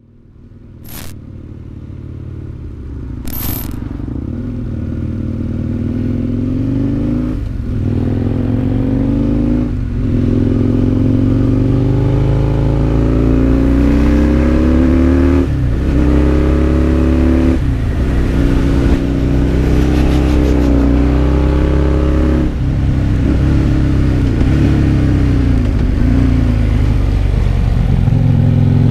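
Husqvarna Nuda 900 parallel-twin motorcycle engine pulling through the gears. The engine note climbs and drops back at each upshift, every few seconds. Two sharp clicks sound near the start.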